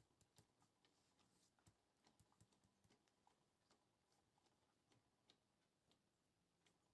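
Very faint, irregular clicking and ticking, with a faint low hum now and then, from a toy Miele washing machine turning its drum during the rinse.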